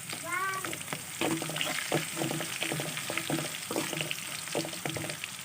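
Spoon stirring and scraping through green chillies and spices frying in hot oil in a pan, with a steady sizzle under repeated scraping strokes, about two to three a second.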